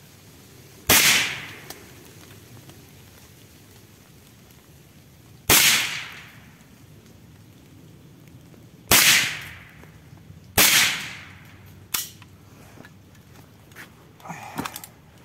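Four shots from a suppressed Saiga-410 semi-automatic .410 shotgun, several seconds apart with the last two closer together, each a sharp report with a short fading tail. A single lighter click follows about a second after the last shot, then soft handling noises near the end.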